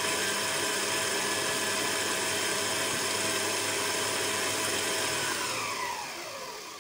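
Electric stand mixer running steadily as it beats cake batter in a stainless steel bowl, then switched off a little over five seconds in, its motor whine falling in pitch as it winds down.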